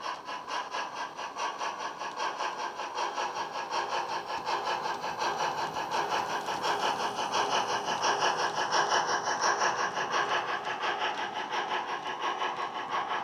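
Sound decoder in a Hornby Q1 model steam locomotive playing a Q1 steam sound through the model's small speaker: quick, even exhaust chuffs of an engine working a freight train. It grows louder as the locomotive draws near and passes, then eases off near the end.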